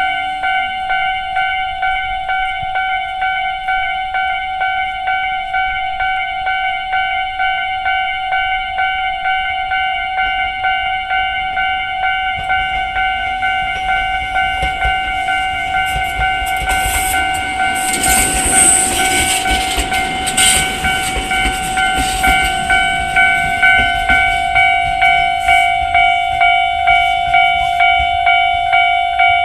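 Japanese level-crossing alarm ringing in its standard tone, a steady repeating electronic ding. Partway through, a train runs over the crossing, its wheels clicking over the rail joints, loudest about two-thirds of the way in.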